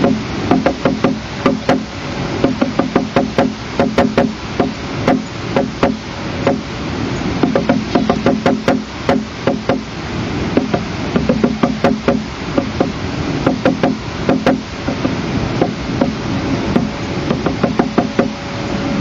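A woodpecker pecking at pine wood: irregular runs of sharp knocks, several a second, with short pauses between runs, over a steady background hiss.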